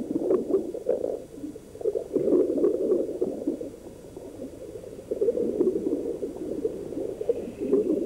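Underwater bubbling and gurgling water, dipping briefly near the middle before swelling again.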